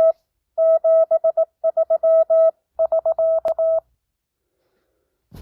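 Morse code (CW) practice tone sent at 18 words per minute: one steady pitched tone keyed into dots and dashes. It stops about four seconds in.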